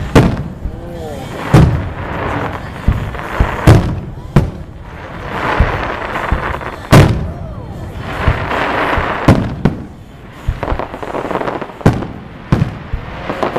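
Aerial firework shells bursting in a series of loud booms, some a second or more apart and some in quick pairs, with crackling from the glittering stars in between.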